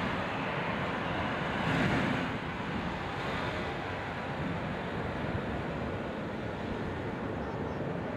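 Steady jet aircraft noise at an airport, mixed with wind on the microphone, swelling briefly about two seconds in.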